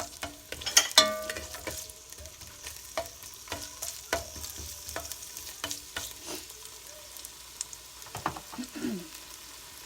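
Onions and ginger sizzling in hot olive oil while a utensil stirs them, with repeated clicks and knocks against the pan. The loudest knocks come about a second in and ring briefly.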